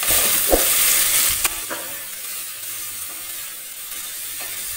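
Sliced onions and green chili sizzling in ghee in an aluminium pressure cooker, stirred with a spatula: a few scrapes and knocks against the pot in the first second and a half, then a steady, quieter frying hiss.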